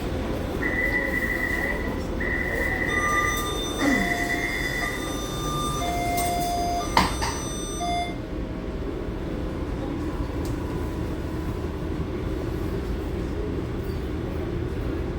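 Taipei Metro C341 train running, with a steady low rumble throughout. For the first eight seconds a series of steady tones sounds over it, stepping between a few set pitches, and there is a sharp click about seven seconds in.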